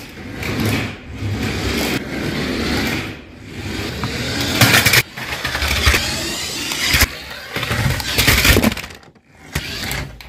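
Vehicle motor running and revving as a 1/16-scale RC car drives, broken into short segments that change abruptly, with a sharp drop about nine seconds in.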